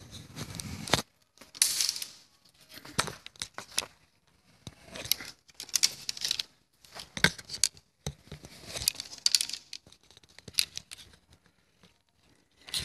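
Arrows being pulled out of a layered foam Block archery target: repeated short scraping, tearing rasps at irregular intervals as the shafts drag out through the foam.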